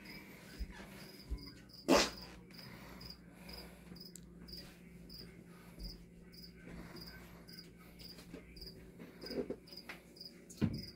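A cricket chirping steadily, about two short high chirps a second, with a loud thump about two seconds in and a few lighter knocks near the end.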